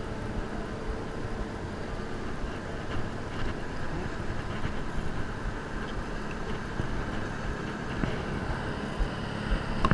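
Wind buffeting the microphone over the steady drone of motorboats running across the water.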